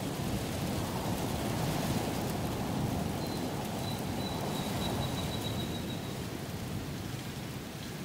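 Strong wind gusting through rainforest and grass-tree foliage: a loud rushing that builds over the first two seconds and eases after about five. Partway through, a bird's thin high whistle is held for about three seconds.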